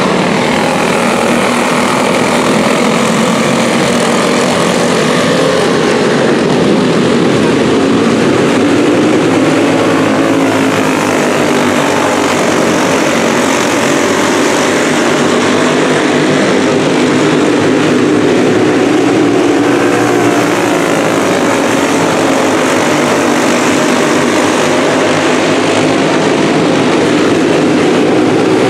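Several racing karts' small engines running together at speed on a dirt oval. Their overlapping pitches waver up and down as the karts circle the track.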